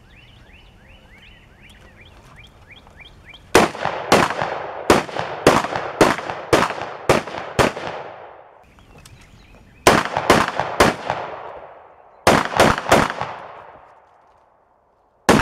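Rifle fire: a rapid string of about ten shots starting about three and a half seconds in, then two groups of three, and one more at the very end, each shot trailing off in an echo. Before the shooting, a bird chirps over and over.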